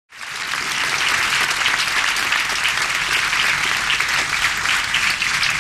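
Audience applauding, many hands clapping steadily; the sound starts abruptly right at the beginning.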